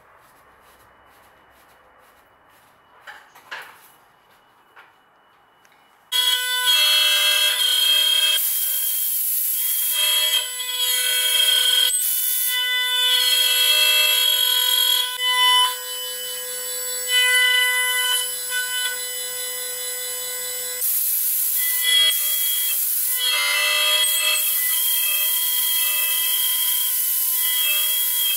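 A few light clicks as the workpiece is clamped. About six seconds in, a high-speed router spindle starts up with a loud, steady high whine. Its bit then cuts a mortise into a solid-wood board following a template, and the hiss of the cut rises and falls as it moves.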